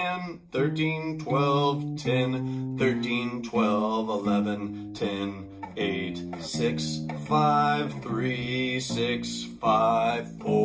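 Acoustic bass guitar playing a run of single plucked notes that change about every half second, with a voice calling out fret numbers over the playing.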